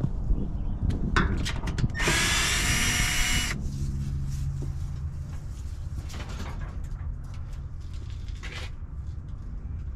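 Cordless drill running in one loud burst of about a second and a half, with a steady high whine. A few sharp clicks come just before it.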